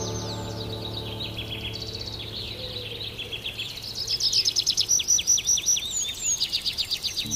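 Songbirds chirping in quick runs of short falling notes, growing louder and busier about four seconds in. Soft background music fades out during the first couple of seconds.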